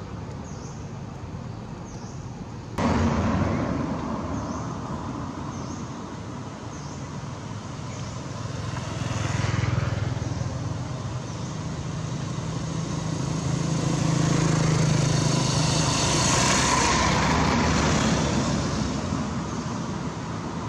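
Road traffic: vehicles passing, the noise jumping up abruptly about three seconds in, swelling once around ten seconds and again, louder and longer with a low engine hum, from about fourteen to eighteen seconds.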